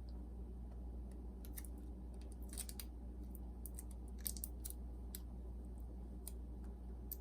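Scattered light clicks and taps of small parts being handled while a boombox is put back together, irregular and loudest about two and a half and four seconds in, over a steady low hum.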